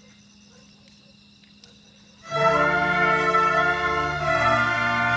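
Youth orchestra starting a piece: after a quiet pause it comes in loudly and all together about two seconds in, playing sustained chords over a held bass note.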